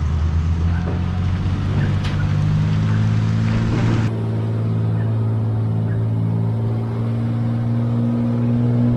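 Cummins turbo-diesel pickup engine pulling hard under a heavy trailer load. Its note climbs for the first few seconds, then holds steady with a slight rise near the end.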